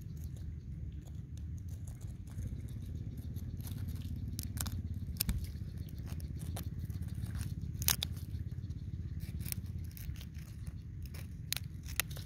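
A dry wooden stick scraping and prodding into a hole in dry, crumbly sandy soil: irregular scratchy clicks and bits of earth breaking away, the sharpest about eight seconds in, over a steady low rumble.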